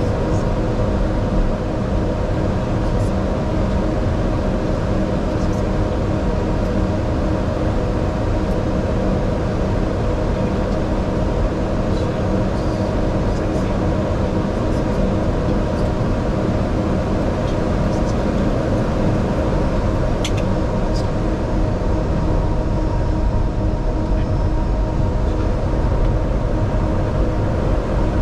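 Steady flight-deck noise of an airliner taxiing: a low rumble with a constant hum from the idling engines and aircraft systems. A few faint ticks are heard.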